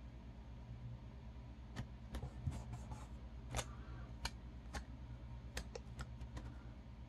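Faint, scattered clicks and ticks of paper planner stickers being peeled off their backing sheet and handled, over a low steady hum.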